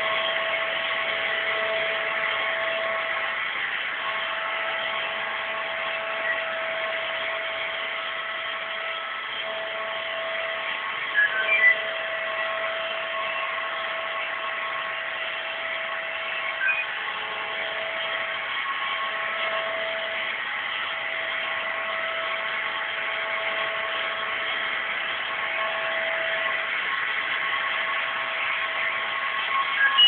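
Euroflex Monster Intelligence robot vacuum cleaner running as it drives itself across the floor: a steady motor and suction hum with a few constant tones. Its sound briefly rises a couple of times, about eleven and seventeen seconds in.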